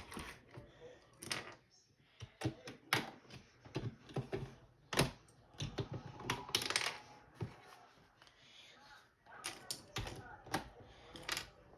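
Irregular plastic clicks and knocks from a computer keyboard being handled during cleaning, with a short scraping stretch about two-thirds of the way through.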